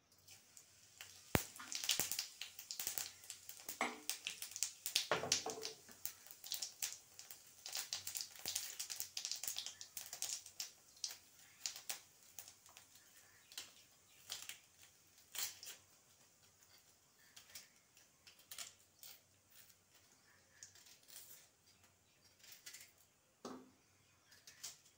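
Spice seeds crackling and sputtering in a little hot oil in a wok: a busy run of sharp pops that thins out to scattered pops over the second half.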